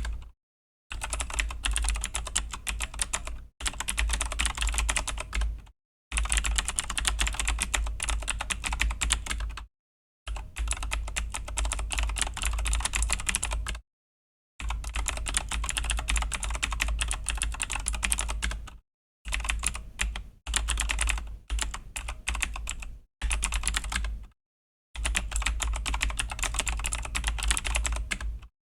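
Fast, steady typing on a Razer BlackWidow V3 mechanical keyboard with clicky Razer Green switches, in runs of a few seconds broken by about ten brief pauses.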